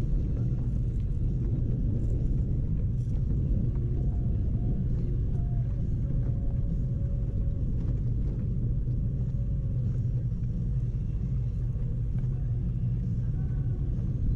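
Fishing boat's outboard motor running steadily underway: an even low rumble.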